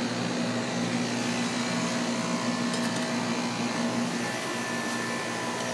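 Outdoor heat pump condensing unit running: a steady compressor hum with a strong low tone under the even rush of the condenser fan, strong enough to shake the ground.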